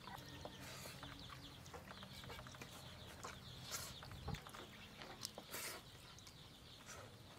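Faint clucking of domestic chickens, with small clicks and smacks of people chewing rice and curry eaten by hand.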